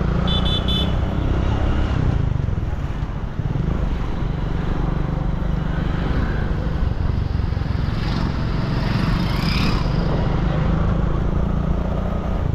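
Street traffic heard from a moving motorcycle or scooter: a steady low engine and wind rumble with other two-wheelers passing. A brief high-pitched beeping comes about half a second in.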